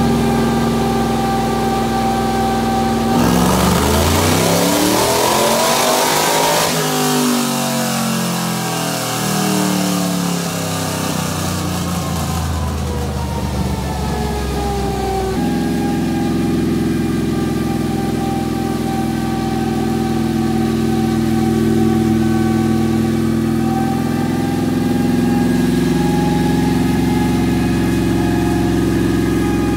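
Dirt-track race car engine on a chassis dyno: idling, then a full-throttle pull about three seconds in with the revs climbing for about four seconds. The throttle then closes and the revs fall slowly as the rollers spin down, and about halfway through it drops back to a steady idle.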